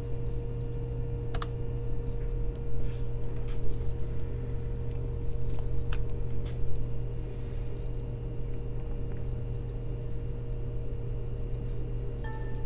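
Steady low electrical hum with a thin held tone, broken by a few scattered short clicks and taps.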